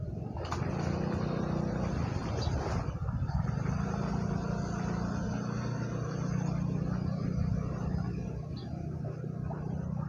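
An engine running with a steady low drone.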